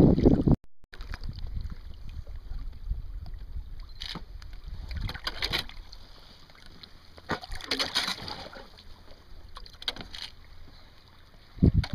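River water splashing and lapping lightly every second or two beside a small inflatable boat, over a low steady rumble of wind on the microphone. A louder dull bump comes near the end.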